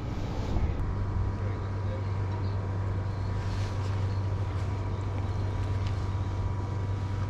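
Steady low engine hum with a faint, steady high whine above it, even throughout.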